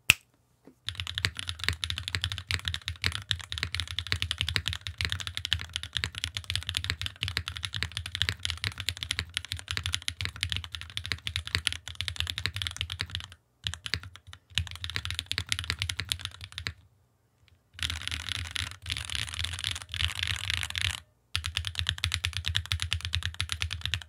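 Fast typing on a mechanical keyboard fitted with stock Gateron RAW long-pole linear switches (polycarbonate top, nylon bottom, POM stem, 62.5 g single-stage spring): a dense run of keystrokes, broken by short pauses about 13 s and 17 s in and again just after 21 s.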